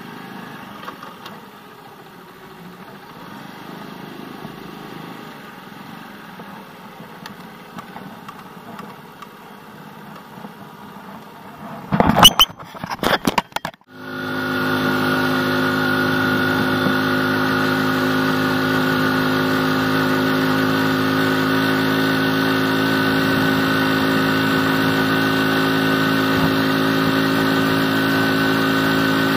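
Small step-through motorcycle's engine running faintly under street noise at low speed. About twelve seconds in come a couple of seconds of loud, irregular crackling. Then the engine runs steadily and much louder at cruising speed, a constant drone with a higher whine over it.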